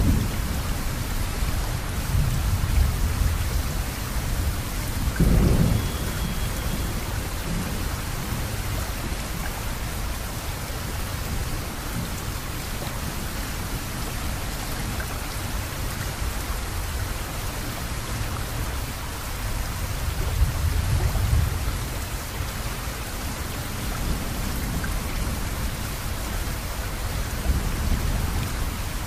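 Steady rain with low rumbles of thunder, a short louder rumble about five seconds in and a longer one around twenty seconds.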